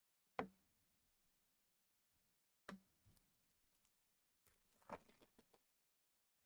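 Faint taps and clicks of trading cards being handled and set down: a sharp tap about half a second in, another a little past the middle, then a short cluster of lighter clicks.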